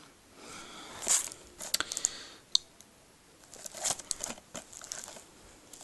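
A plastic Blu-ray case being handled: irregular crinkling and scraping of plastic with scattered sharp clicks, the sharpest about two and a half seconds in and a cluster of them about four seconds in.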